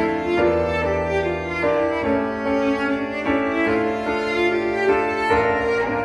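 Background instrumental music: held string notes, violin-like over a low cello-like line, with some piano, the notes changing every second or so.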